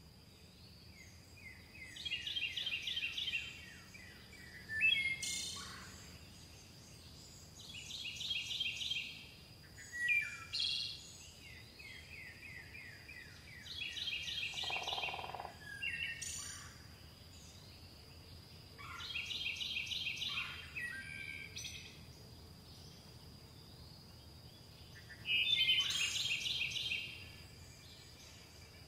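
A songbird singing the same short phrase five times, about every six seconds: a quick high trill followed by a few sharp whistled notes. A faint steady high-pitched tone runs underneath.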